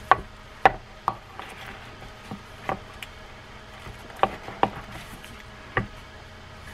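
Scattered sharp clicks and taps, about eight at irregular intervals, from the parts of a Fin-Nor Ahab 16 spinning reel knocking together as the reel is turned over by hand and its axle shaft worked out of the body.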